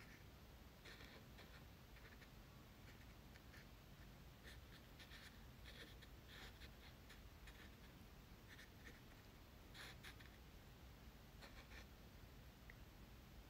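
Faint, irregular scratching and dabbing of a loaded paintbrush on 140 lb Arches watercolour paper as small strokes of paint are laid down, over a low room hum.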